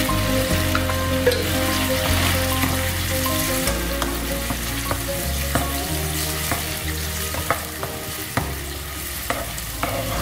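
Prawns in sambal sauce sizzling in a granite-coated frying pan, with a spatula stirring and knocking against the pan in short clicks from about halfway. Background music with held bass notes plays underneath.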